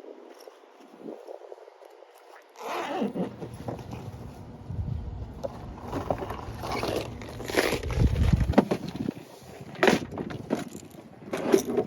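Irregular scraping and rustling close to the microphone, with a few sharp knocks near the end, after a quiet first couple of seconds.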